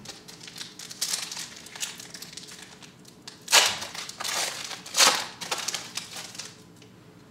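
Foil trading-card pack wrapper crinkling as it is torn open by hand, with two louder crinkles about three and a half and five seconds in.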